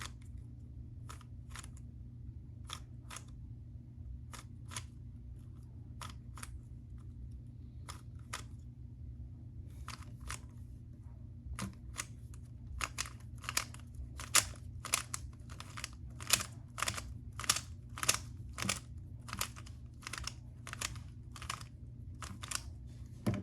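A Rubik's Cube's plastic layers being turned by hand, clicking with each turn as the left face and the top face are turned again and again. The clicks are sparse at first, then quicken to two or three a second about halfway through.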